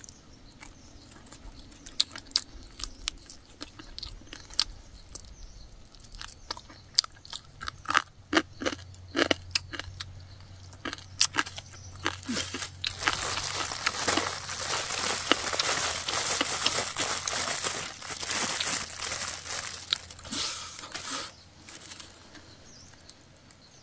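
Close-up chewing and crunching of grilled rat meat and small bones: scattered sharp crunches at first, then about nine seconds of denser, louder crunching from about halfway through, dying away near the end.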